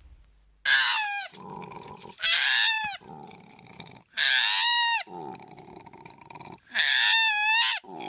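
Koala screaming: four loud, high-pitched wailing calls, each falling in pitch, with quieter, lower sounds between them.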